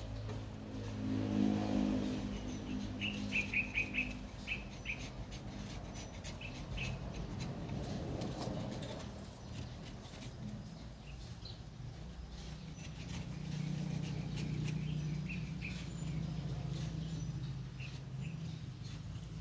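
Kitchen knife cutting and scraping the fibrous husk of a sprouted coconut, with many small clicks and scratches. Birds chirp in the background, in a quick run of short chirps a few seconds in, over a low steady hum.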